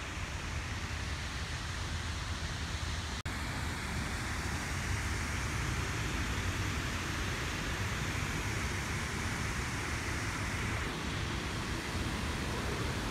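Steady outdoor wind noise rumbling on the microphone. After a brief dropout about three seconds in, the rushing hiss of a cascading garden waterfall joins it, stopping abruptly about eleven seconds in.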